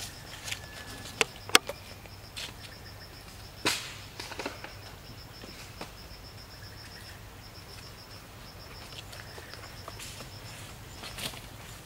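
An insect chirping in a steady, evenly pulsed high trill, with a few sharp clicks and snaps scattered over it, the loudest about one and a half and three and a half seconds in.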